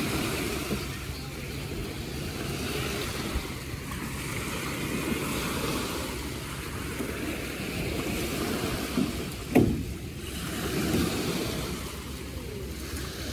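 Steady wind rumbling on the microphone over beach surf, with one brief sharp knock about nine and a half seconds in.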